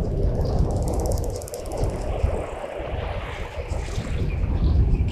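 Wind rumbling on the microphone, an uneven low buffeting, with a brief high rapid trill about a second in.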